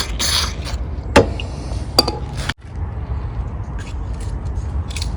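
Small metallic clicks and light scraping as parts are handled on a lawn mower carburetor, with two sharper clicks in the first couple of seconds over a low background hum.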